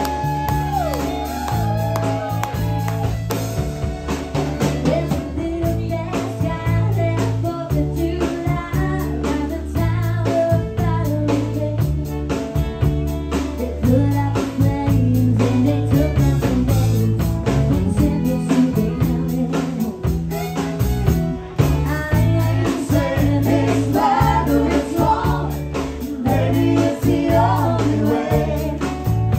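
A woman singing lead into a microphone with a live band behind her, guitar and drums keeping a steady beat.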